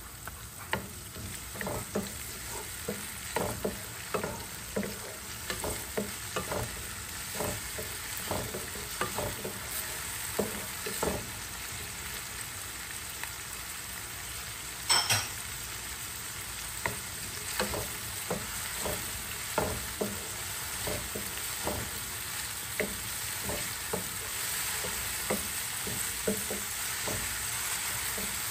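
Chopped onions and minced garlic sizzling in cooking oil in a frying pan, getting slightly louder, with irregular taps and scrapes of a wooden spatula stirring them and one louder clatter about halfway through.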